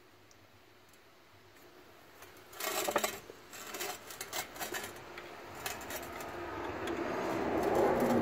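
Metal clinks and knocks of hex-head bolts being handled and set into the column support holes of a drill press's metal base, loudest about three seconds in, with smaller taps after. A rising noise builds near the end.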